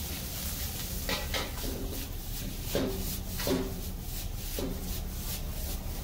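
Spatula scraping and knocking against the pan as the fried rice is stirred: a handful of short scrapes and taps spread over a few seconds, over a steady low hum.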